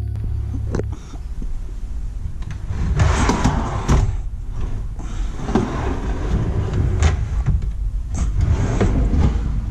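Large plywood drawers of a tool cabinet being pulled out and pushed back in on their runners: several rough sliding rushes and knocks, the first and loudest about three seconds in, over a steady low rumble.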